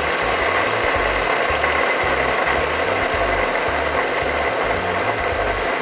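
Electric mini chopper running steadily, its blades grinding sunflower seeds with lemon, oil and a little water into a coarse paste; an even motor whine with a faint high tone.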